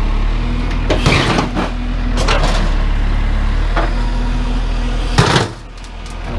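JCB 214 backhoe loader's diesel engine running steadily under throttle while the backhoe works, with metallic clanks and bangs about a second in, at two seconds and just after five seconds, as the bucket strikes scrap metal. The engine sound drops away sharply about five and a half seconds in.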